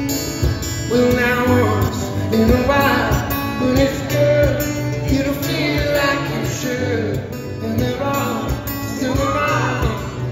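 Acoustic guitar playing with a man singing over it, a live solo performance; the voice comes in about a second in.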